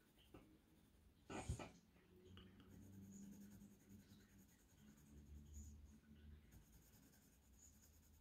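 Faint scratching of a mechanical pencil drawing on watercolour paper, with one brief louder sound about a second and a half in.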